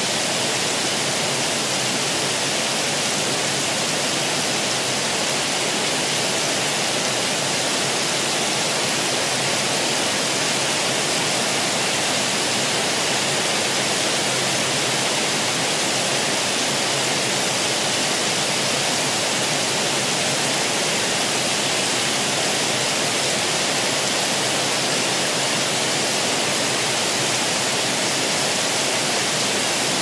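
Heavy rain falling steadily: an even, unbroken hiss.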